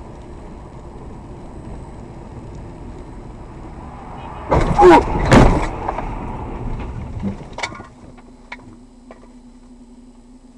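Car crash recorded from inside the car: steady road and engine noise, then about four and a half seconds in two loud bangs half a second apart as the car strikes orange plastic traffic barriers at the guardrail, followed by crunching and clattering for a couple of seconds. After that a steady low hum remains.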